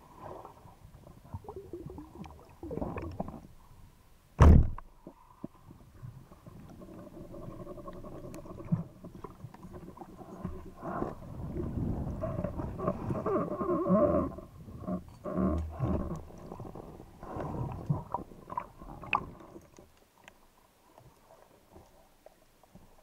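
Carbon arbalete speargun fired underwater: one sharp, loud crack about four and a half seconds in, heard through an action camera's housing. After it comes a long stretch of uneven rumbling, knocking and scraping that fades near the end.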